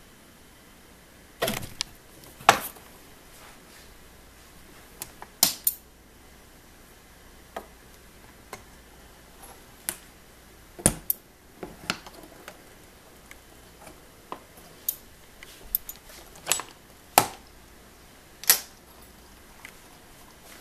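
Scattered sharp clicks and knocks, about a dozen at uneven intervals, from handling glass-fronted snake enclosures and metal feeding tongs.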